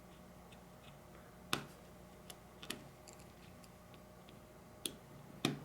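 Sharp clicks and taps of a small tool working on a flip phone's plastic housing: a loud click about a second and a half in and another near the end, with a few fainter ticks between. A low steady hum runs underneath.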